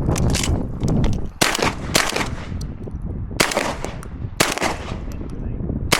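Shotgun fired in single shots about a second apart, around six in all, over a steady low rumble.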